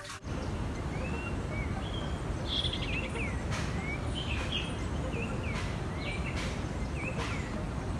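Birds chirping: short, curving chirps repeated every second or so, starting about a second in, over a steady low background noise.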